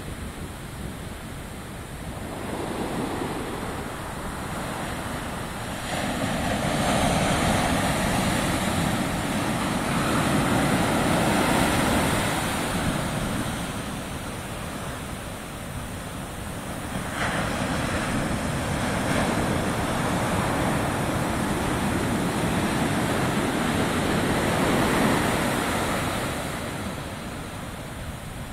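Ocean surf breaking on a sandy beach and rocks, foam rushing up the shore. The roar swells and fades in long surges as each set of breakers comes in.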